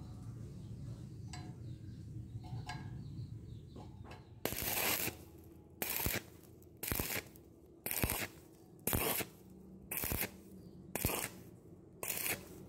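Stick welding arc on thin square tube, struck in eight short crackling bursts about one a second, starting about four seconds in: an on-off stitch technique that limits heat in the thin wall.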